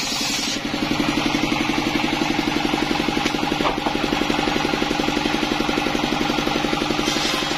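Yanmar single-cylinder diesel engine driving a circular saw blade through coconut-trunk wood: the cut ends with a rushing hiss about half a second in, then the engine chugs on at a rapid, even beat while the blade spins free. The cutting hiss rises again near the end as the next cut starts.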